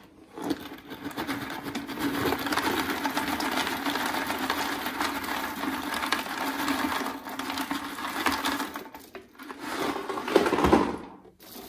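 Filter-media tubes poured into the basket of an Eheim Professionel 5e canister filter, a dense clattering rattle of many small pieces. It thins out briefly near the end, comes back for a moment and then stops.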